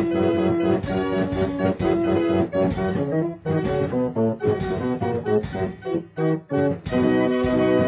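Background music: a keyboard tune of held notes over a steady beat.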